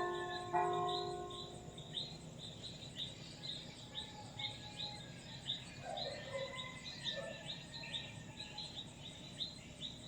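A church bell struck once about half a second in, its ringing fading over the next second or two. Birds chirp throughout: short, high, falling chirps repeating about twice a second, with a few lower calls near the middle.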